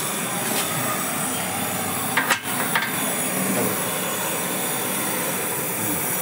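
Metal clinking as a steel pipe is pressed and knocked against the scooter's steel mudguard bracket, with a few sharp clinks a little over two seconds in. A steady hiss runs underneath.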